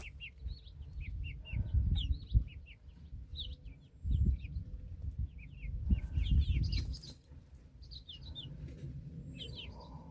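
Young chicks peeping: a steady stream of short, high, downward-sliding cheeps. Three spells of low rumbling noise, each about a second long, come and go in the first seven seconds.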